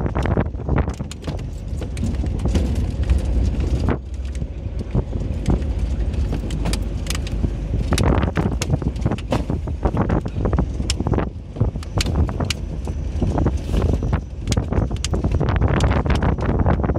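A vehicle driving over a rough, rutted dirt road: a steady low rumble from the tyres and body, with frequent sharp knocks and rattles as it jolts over the ruts.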